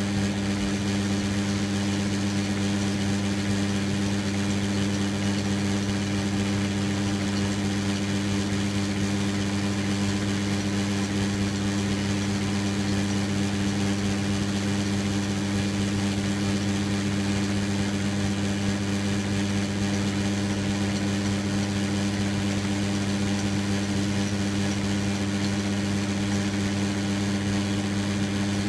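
Metal lathe running at a steady speed while boring out a compressor pressure-switch outlet: a constant motor hum with a few evenly spaced overtones, unchanging throughout.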